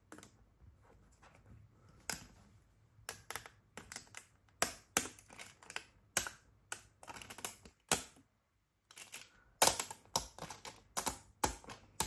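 A 3D-printed hexagonal nested fidget toy being prised off a glue-coated spring-steel printer build sheet. It gives a string of irregular sharp clicks and small snaps as the thin single-line walls pop free of the glue, with a short pause about two-thirds through.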